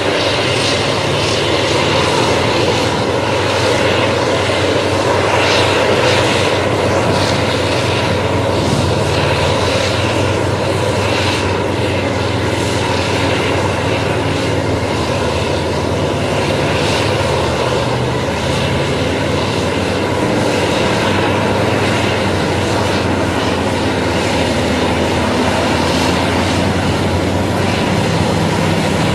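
Large bulldozer's heavy diesel engine running steadily with a low, even drone.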